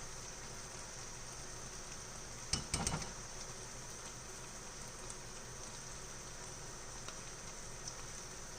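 Butter sizzling in a hot pan, a steady hiss, with a brief clatter of a few quick knocks about two and a half seconds in.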